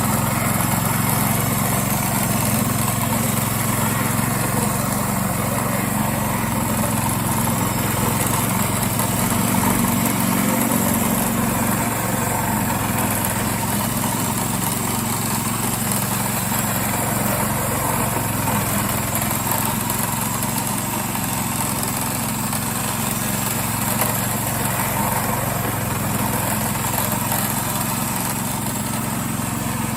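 Small engine of a homemade radio-controlled lawn mower running steadily as the mower works, with a slight swell in level about ten seconds in.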